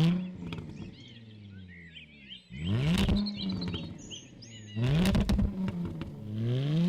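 Jaguar F-Type engine blipped repeatedly, about four throttle blips each sweeping up sharply and dying away slowly, the last still rising at the end. Birds chirp faintly between the blips.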